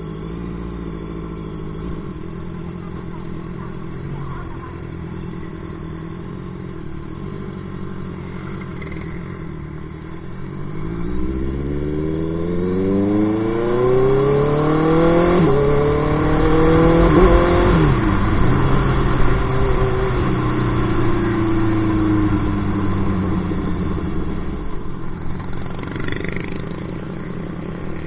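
Honda sport motorcycle's engine running at low speed, then about ten seconds in accelerating hard, its pitch rising, dropping sharply at a gear change and rising again. It then holds a steady note that slowly falls and quietens near the end as the bike eases off.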